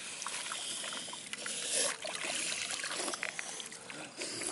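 Muddy water sloshing and splashing with irregular small wet clicks, as a person moves while lying in a shallow, waterlogged field ditch.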